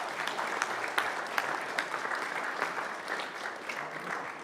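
Audience applauding, many hands clapping in a dense patter that slowly fades toward the end.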